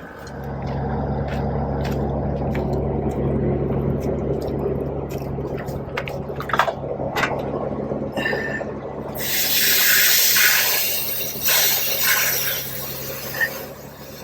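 VIAIR portable 12-volt air compressor starting up and running with a steady hum, with scattered clicks of handling. About nine seconds in, a loud hiss of escaping air joins it for about three seconds.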